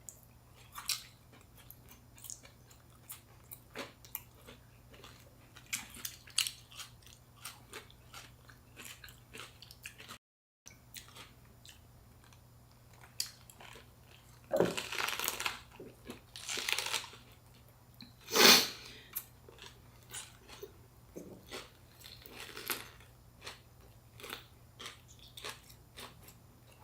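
Close-miked chewing and crunching of fresh spring rolls filled with raw vegetables and shrimp: scattered wet mouth clicks, with a few louder crunchy bites in the second half.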